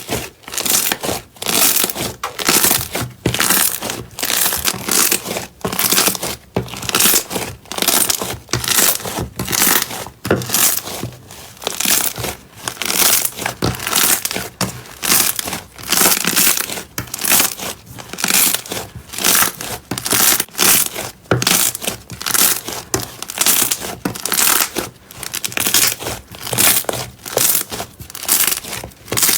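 Slime being squeezed and kneaded by hand, in a steady run of short squishes at about two a second that stops suddenly at the end.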